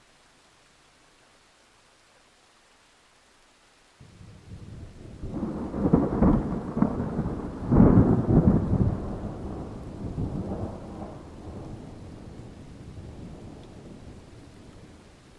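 A peal of thunder over a faint steady hiss: the rumble starts suddenly about four seconds in, swells to two loud cracks around six and eight seconds, then rolls away and fades gradually near the end.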